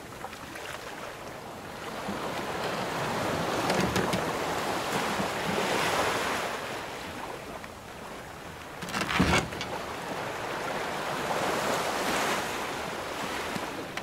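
Ocean waves washing in slow swells, rising and falling every few seconds, with one short, louder knock or splash about nine seconds in.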